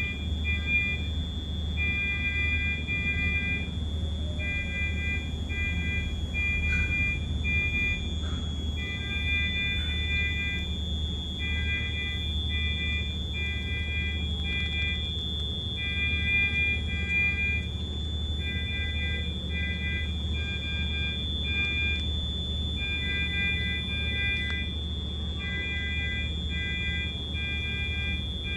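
Medical monitor alarms in a neonatal intensive care unit: groups of short, pitched beeps repeating with brief pauses between, over a continuous high-pitched tone and a low, steady equipment hum.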